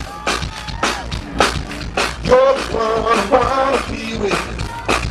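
Live band music with a steady drum beat, about two strokes a second. A voice sings a line from about two seconds in.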